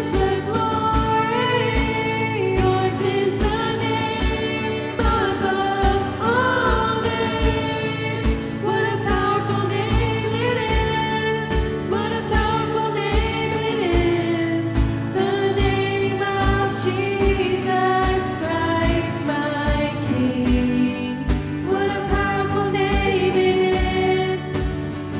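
Church worship band playing, with singing over a steady kick-drum beat of about two strokes a second.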